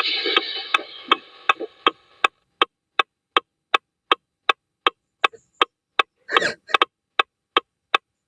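Sharp clicks at an even pace, about three a second, like a clock ticking. A loud crash fades out over the first two seconds, and a short rush of noise comes about six seconds in.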